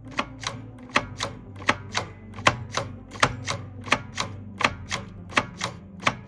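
Keys of a 3D-printed plastic Enigma M4 replica being typed one after another, each keystroke giving a pair of sharp clacks as the key goes down and the rotors step, then comes back up. About eight keystrokes at an even pace.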